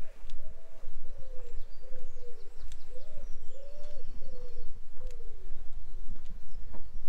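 A pigeon cooing in an unbroken run of short low notes, about two a second, with small birds chirping faintly higher up and a steady low rumble underneath.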